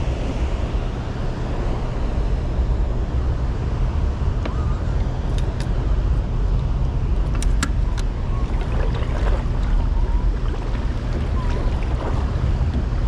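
Steady wind rumble on the microphone over moving river water, with a few sharp ticks about halfway through and some faint short chirps.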